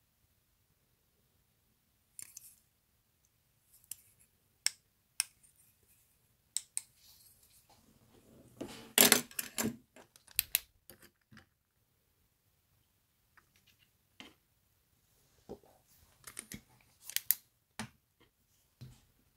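Small clicks, snips and rustles of fly-tying tools being handled at the vise, with a louder clatter about nine seconds in.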